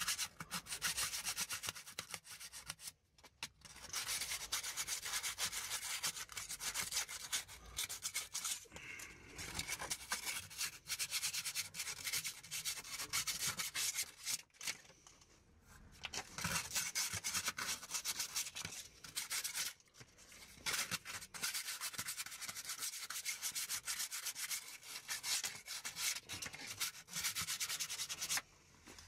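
Coarse P40 sandpaper rubbed rapidly back and forth by hand over the rusty steel flange of an exhaust catalytic converter, cleaning rust off its mating surface. The scratching comes in stretches broken by several short pauses.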